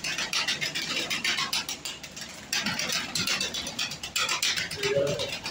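Domestic pigeons flapping their wings and scuffling about, a rapid flutter of wingbeats in two bouts with a short lull about two seconds in. A short low coo comes near the end.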